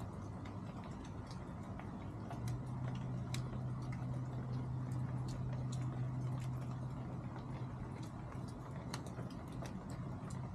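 Chickens pecking at feed: sharp, irregular ticks, several a second, some louder than others. A low steady hum rises about two and a half seconds in and eases off near the end.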